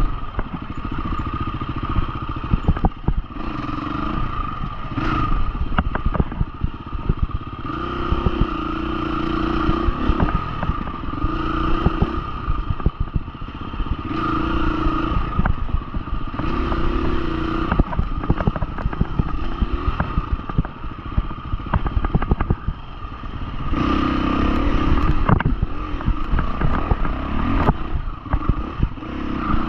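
Husqvarna FE350 four-stroke single-cylinder dirt bike engine being ridden off-road, the throttle opening into repeated revving bursts and easing off between them. Sharp clattering knocks run through it.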